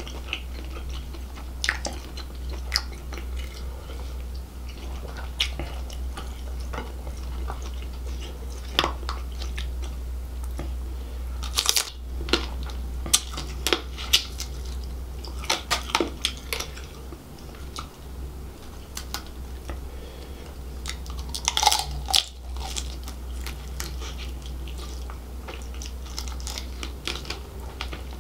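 Close-miked chewing and biting of seafood in spicy gravy, wet mouth sounds with scattered crunches and clicks. The crunches come in a few louder clusters through the middle and about three-quarters of the way through.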